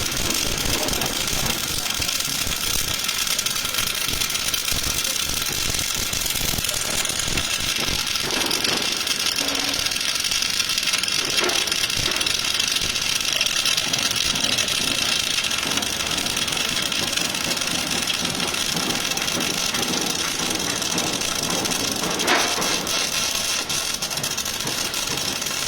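Welding arc of a welding cobot crackling steadily, with the high hiss growing brighter about a quarter of the way in.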